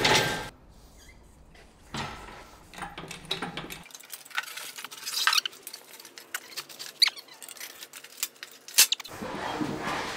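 Scattered metal clicks, knocks and short squeaks as the steel frame and deck of a BendPak scissor lift are handled and set in place, with a sharper knock near the end.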